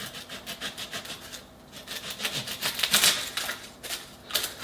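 Blunt kitchen knife sawing through the top of an onion on a plastic chopping board: a quick run of short scraping strokes, with a brief pause about one and a half seconds in and louder strokes after it.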